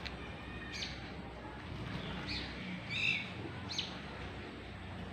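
Small birds chirping: a handful of short, high calls about a second apart, over a low, steady background hum.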